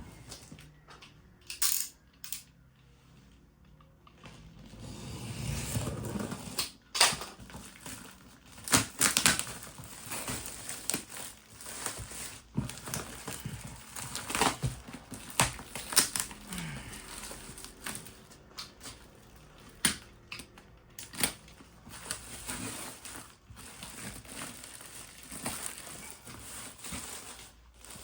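Cardboard shipping box and packaging being opened and handled by hand: irregular rustling and scraping with many sharp clicks and knocks, busy from about four seconds in.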